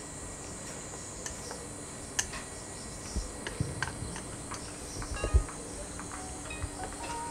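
Steady high drone of insects, with light clicks and clinks of chopsticks against a stainless steel bowl as seaweed salad is tossed, and a dull thump about five seconds in.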